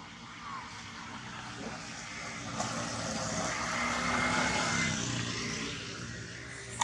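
A motorbike passing close by: its engine and tyre noise swell to a peak about four seconds in, then fade as it goes away.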